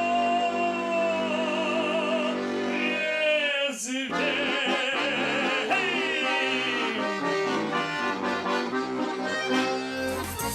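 Closing bars of a Russian folk song: a male voice holds the last sung note with vibrato for about three seconds, and then a bayan (button accordion) plays a quick, busy closing passage of runs and chords that ends the song.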